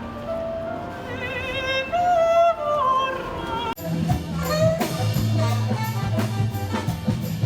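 Music: a solo voice sings with strong vibrato, then about halfway through it cuts off abruptly to different music with steady low bass notes and quick percussive hits.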